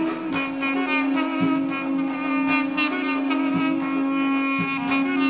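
Instrumental background music: a held low note with overtones, stepping down in pitch just after the start, over a soft beat about once a second.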